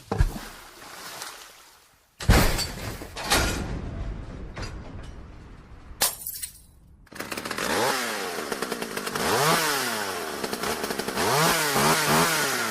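A few sudden loud crashes, then from about seven seconds in a small engine revving up and down again and again.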